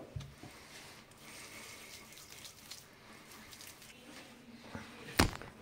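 Wet squelching and slapping of hands rubbing oil and paprika into raw chicken legs on a wooden cutting board, with a low thump at the start and a single sharp knock about five seconds in.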